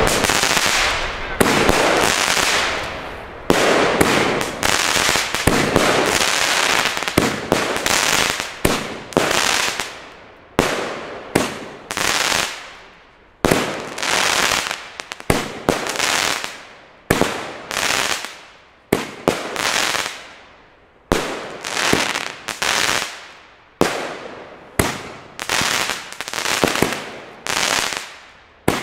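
Pyroland 'Geiler Macker' consumer firework battery (cake) firing. For about the first ten seconds the shots and bursts come close together in a dense run. After that they come singly, about once a second, each sharp bang followed by a short fading tail.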